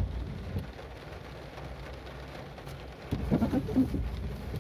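Rain on a parked car over a low steady hum. A windshield wiper sweeps across the wet glass, with a short rubbing sound a little after three seconds in.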